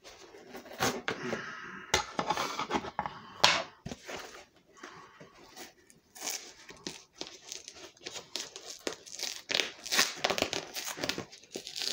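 Packaging crinkling and tearing as it is unwrapped by hand, in irregular crackly rustles with a few sharper rips.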